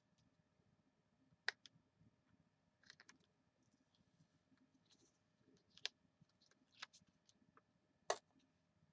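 Scattered light clicks and taps, about six in all, from paper and craft supplies being handled on a work surface, with near silence between them.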